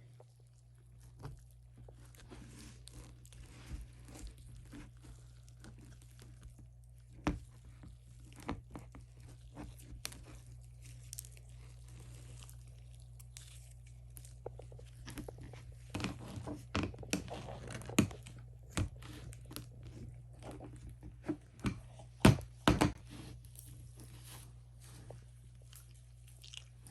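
Fluffy slime with sprinkles mixed in, being squeezed and stretched by hand: irregular small crackles and sticky pops. A cluster of louder pops comes past the middle and another near the end, over a steady low hum.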